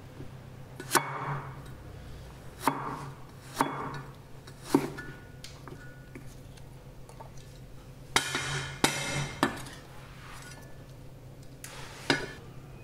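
Heavy Chinese cleaver striking a thick wooden chopping block as garlic and ginger are chopped: about eight sharp knocks at irregular intervals, two of them close together just past the middle.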